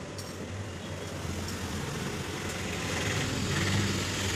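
Street traffic: a motor vehicle engine running over a steady low hum, growing louder about three seconds in.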